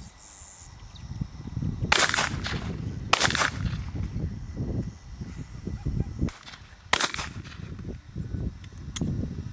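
A 12 bore side-by-side shotgun fired three times: two shots about a second apart around two seconds in, and another about seven seconds in. Wind buffets the microphone between the shots.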